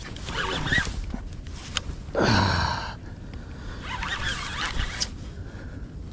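Conventional saltwater reel being cranked in bursts while reeling in a hooked sturgeon on a heavy rod, its gears whirring. About two seconds in, a loud short call falls in pitch.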